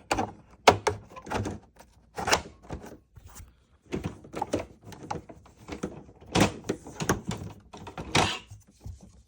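Irregular plastic knocks, clunks and short scrapes as a vacuum cleaner hose is fitted into the suction inlet of a Hoover Preferred canister vacuum, before the motor is switched on.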